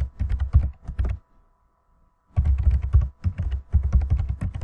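Fast typing on a computer keyboard: a run of keystrokes, a pause of about a second, then another run.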